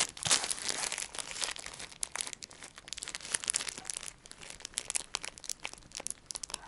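Crinkly plastic snack packet crackling irregularly as a small chihuahua noses and paws at it, loudest just after the start.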